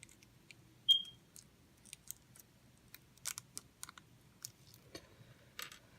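Scattered small clicks and ticks of a plastic Blu-ray case and its wrapping being handled and opened, with one sharp click about a second in and a quick cluster of ticks near the middle.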